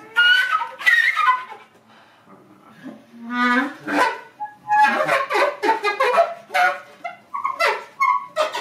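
Contemporary chamber music for flute, bass clarinet and violin: short broken gestures with sharp attacks and sliding pitches, a near-quiet pause about two seconds in, a low held note, then a dense flurry of short notes.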